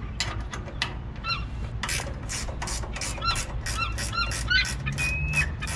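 A gull giving a rapid series of harsh alarm calls, about four a second, as it defends its chick against an intruder near the nest.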